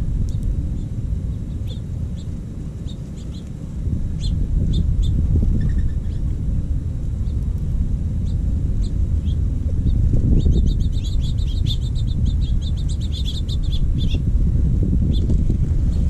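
Small songbirds chirping in short, scattered notes, with a fast run of chirps from about ten to fourteen seconds in, over a steady low rumble of wind on the microphone.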